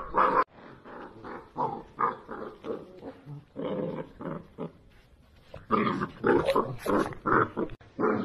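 Two-month-old Central Asian Shepherd puppies making a string of short, repeated calls as they play-fight. The calls are loudest from about six to seven and a half seconds in.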